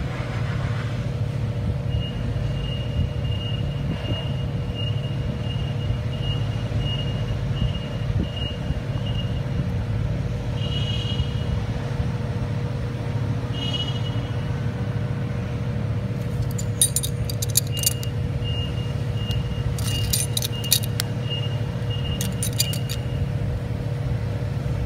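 Steady low shop rumble with a constant hum throughout. In the last third come light clusters of metal-on-metal clinks from the steel lock nut and spanner wrench being worked on the accumulator's oil port.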